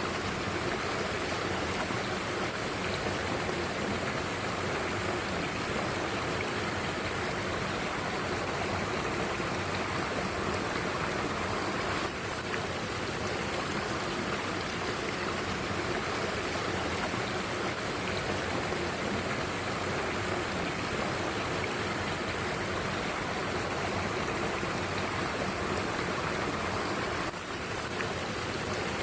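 Mountain stream water rushing and splashing steadily over rocks.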